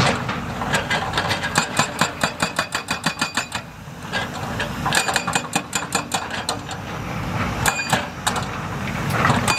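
Heavy construction machinery running with a steady low rumble, overlaid by rapid, evenly spaced metallic clicking at about five a second in two long runs that stop and start again.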